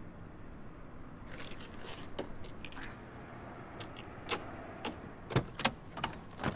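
Irregular clicks and knocks of something being handled, sparse at first and sharper in the second half, the loudest two knocks close together about five and a half seconds in.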